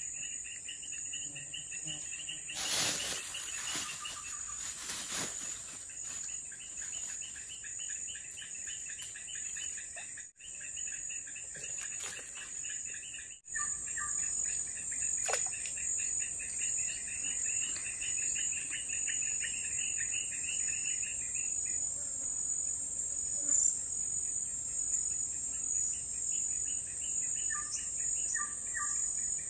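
A chorus of insects in riverside forest: a steady high buzz, with a rapidly pulsing chirping trill over it that stops about two-thirds of the way through and comes back faintly near the end. A few brief scratchy handling noises come a few seconds in.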